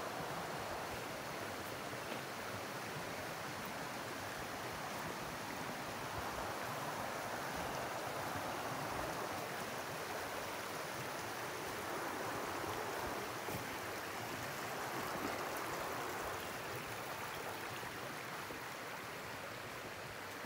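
Small creek running after rain: a steady rush of flowing water that swells a little and eases off.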